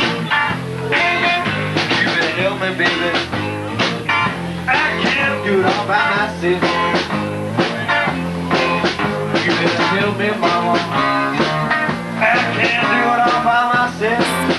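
Live blues band playing: electric guitars and bass under an amplified harmonica blown into a hand-cupped microphone, its notes bending over the band.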